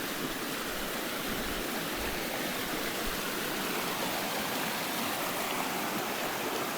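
A river rushing, a steady, even sound of flowing water.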